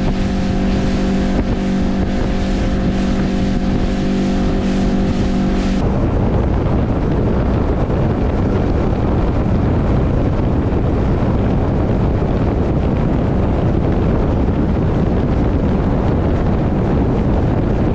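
Outboard motor on a bass boat running steadily at speed, a level drone mixed with wind and rushing water. About six seconds in, the sound changes abruptly to a rougher rush of wind and water, with the engine's tone much less distinct.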